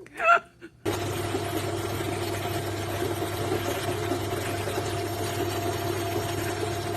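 A brief high-pitched squeak, then about a second in a steady mechanical whirring hum starts up and runs on evenly, with a short rising whistle near the end.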